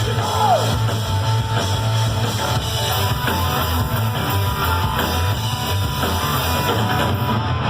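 A punk rock band playing live, with electric guitar to the fore over drums and bass. The sound is dense and loud with a heavy low end.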